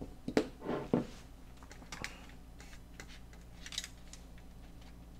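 Quiet tabletop handling sounds: a few soft knocks in the first second as a hot-sauce bottle is set down, then scattered taps and a brief crinkle of aluminium foil near four seconds as a taco is lifted from its foil wrapping.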